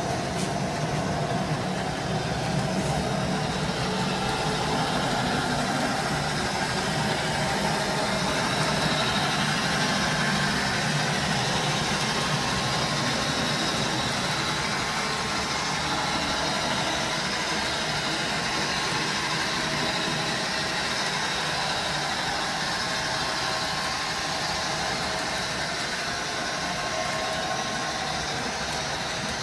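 H0-scale model train running on the layout, with a steady engine sound that does not change.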